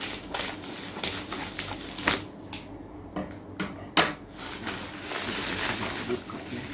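Bubble-wrap packaging crinkling and rustling as it is handled and pulled off, with scattered sharp clicks; the loudest click comes about four seconds in.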